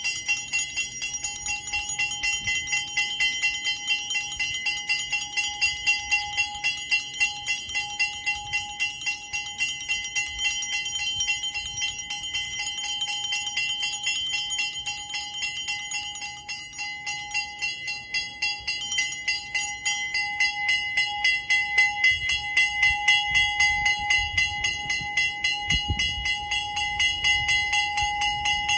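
Brass hand bell rung rapidly and without pause during a lamp offering (aarti), a steady bright ringing.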